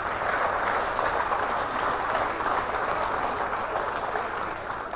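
Audience applauding steadily, dying down slightly near the end.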